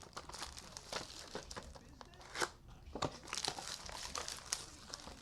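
Trading-card pack wrappers crinkling and tearing as packs are opened by hand, in a run of irregular crackles.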